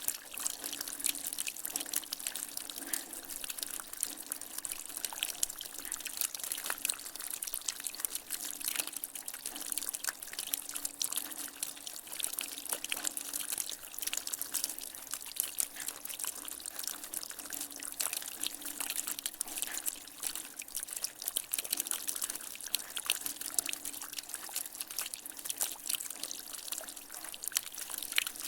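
Rainwater dripping and trickling from a gutter after rain: a dense, continuous patter of many small drips.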